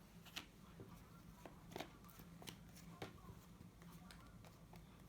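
Faint, scattered clicks and flicks of playing cards being handled and laid out, about a dozen over a few seconds, over a steady low hum.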